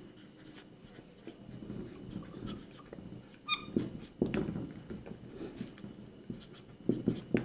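Marker pen writing on a whiteboard: short, irregular scratching strokes, with a brief high squeak about three and a half seconds in.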